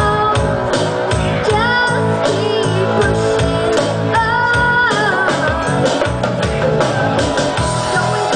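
Live band playing a pop ballad with female vocals sung into microphones, over electric guitar, keyboard, congas and drums keeping a steady beat.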